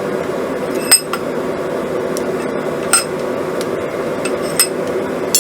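Steady roar of a lit forge, with four sharp, ringing metallic clinks of tools on 1/4 inch square steel stock as a twist is put into a drive hook: about a second in, near three seconds, and two more near the end.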